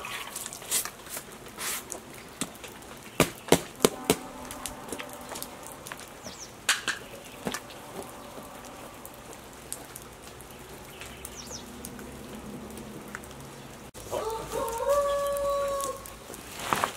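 Steady rain falling, with several sharp knocks and clatters in the first half. Near the end a rooster crows once, for about two seconds.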